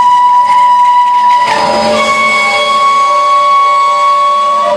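Freight train's covered hopper cars slowing under an emergency brake application, the brake shoes and steel wheels giving a loud, steady high-pitched squeal made of several tones. The squeal shifts slightly higher in pitch about two seconds in.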